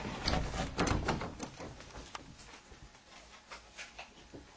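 Scattered light clicks and knocks with some rustling, busiest in the first second and a half, then a few faint isolated clicks.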